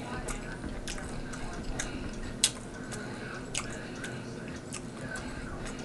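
A person chewing food with the mouth closed: soft, wet mouth clicks and smacks scattered through, with one sharper click about two and a half seconds in.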